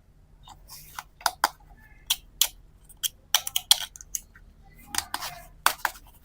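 Plastic toy pieces being handled: irregular sharp clicks and clatters with short rustles, some coming in quick pairs.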